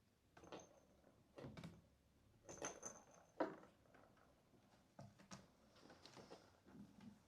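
Kittens playing with toys: faint, scattered light taps, knocks and rustles, the sharpest knock about three and a half seconds in.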